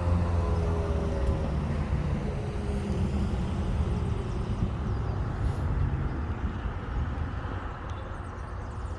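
Outdoor tornado warning siren winding down at the end of its test: its tone drops in pitch and fades over the first couple of seconds, leaving a low hum that slowly dies away.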